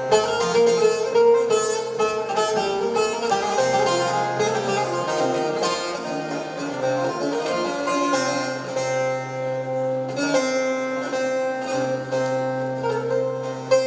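Bağlama (long-necked Turkish saz) playing a quick plucked melody over held, ringing lower notes.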